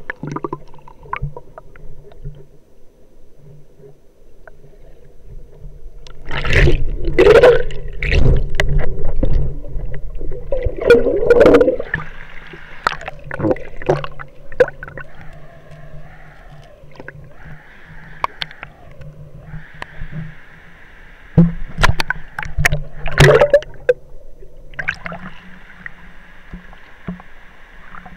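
River water gurgling and splashing, muffled through an action camera's waterproof case, with two spells of loud splashing, about six seconds in and again around twenty-one seconds in.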